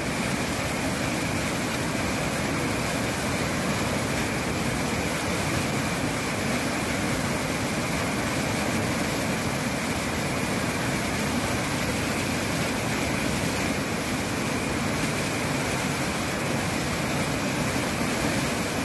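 Muddy flash-flood water rushing down a riverbed in a steady, unbroken rush.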